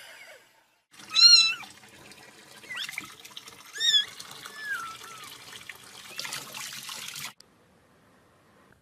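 A cat meowing about four times in high calls that rise and fall, over a steady hiss like running tap water.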